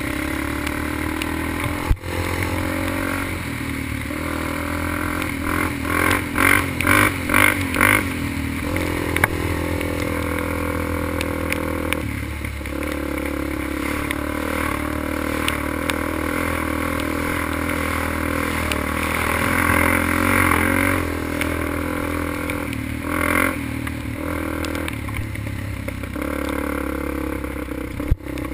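ATV engine running as the quad rides along a wet dirt trail, with clattering from the machine over the rough ground. About six seconds in there is a quick run of about five surges, and the engine gets louder again later on.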